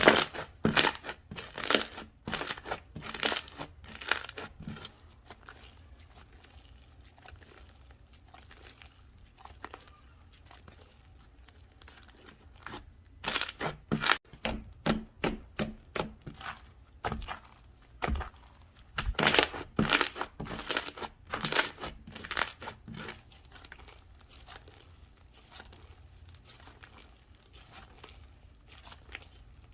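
Slime being squished and stretched by hand, making bursts of rapid clicks and crackles with quiet pauses between.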